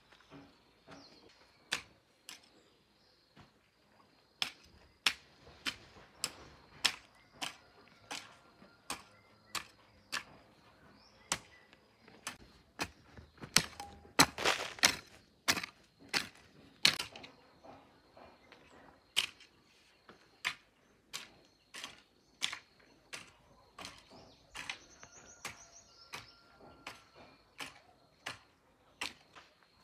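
Hand hoe chopping into dry, clumpy soil, its blade striking the ground in a steady rhythm of about two strikes a second, with a louder run of strikes about halfway through.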